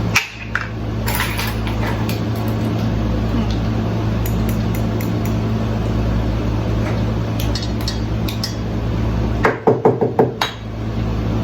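Measuring spoons clinking against spice containers and a mixing bowl as cumin is measured out, with a quick run of about six sharp taps near the end, over a steady low hum.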